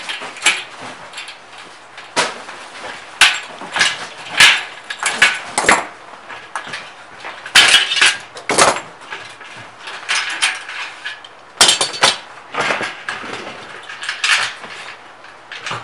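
Locking clamps being snapped open and pulled off the freshly soldered seam of a copper cone, giving irregular sharp metallic clanks and clicks as the clamp jaws release and knock against the copper sheet and the bench.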